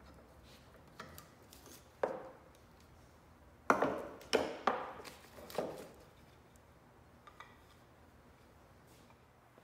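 Wooden blocks knocked loose and clattering on a plywood bending form as bent, steamed oak is taken off it. A couple of light knocks are followed by four sharp wooden knocks in quick succession about four seconds in.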